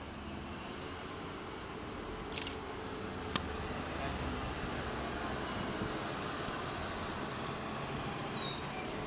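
MTA New York City transit bus driving slowly past close by, its engine running steadily and growing a little louder as it passes. There is a brief hiss about two seconds in and a sharp click a second later.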